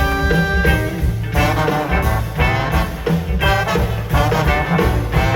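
Live brass-band music led by trombones, playing a rhythmic funk-jazz line over a steady beat.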